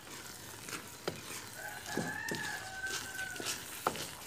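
A rooster crowing once: one long call that starts about a second and a half in and lasts about two seconds. Under it, a wooden spatula clicks and scrapes against an aluminium wok as sticky rice is stirred.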